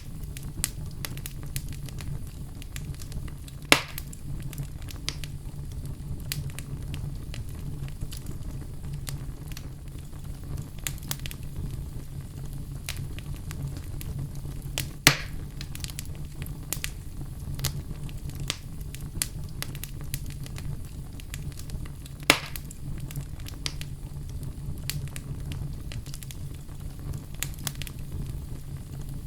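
Wood fire crackling in a fireplace: a steady low rumble with frequent small crackles and three louder pops spread through.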